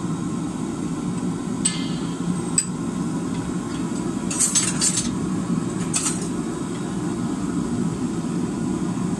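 Sharp metallic clinks of tongs and a wrench against a glowing steel bar held in a bench vise as the bar is set and gripped for twisting, several in quick succession about four to five seconds in. Under them, a steady low noise runs throughout, which fits the forge running.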